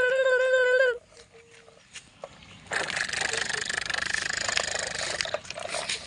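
A loud, wavering animal call that ends about a second in. It is followed by a rough, steady noise lasting about two and a half seconds.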